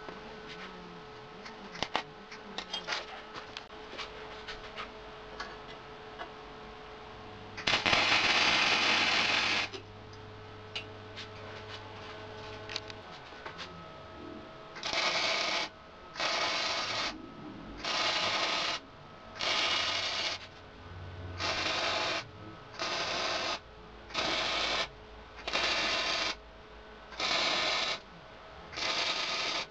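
Lincoln flux-core wire-feed welder arc crackling in bursts. One weld of about two seconds comes first, then about ten short bursts of under a second each, evenly spaced.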